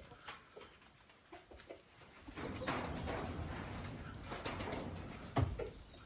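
Short, low bird calls, with a stretch of rushing noise in the middle and a single sharp knock near the end.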